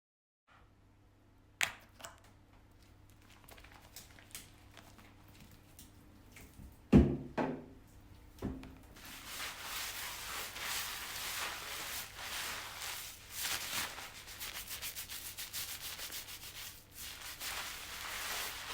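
A click, then a few knocks and a loud thud, then a shower running from about nine seconds in: a steady hiss of spraying water that rises and falls as the stream is broken up.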